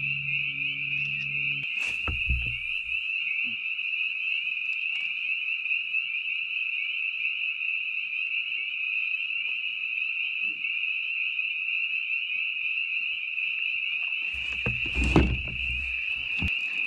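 A dense chorus of frogs calling steadily, a continuous high-pitched peeping. There are a few knocks and low thumps near the end.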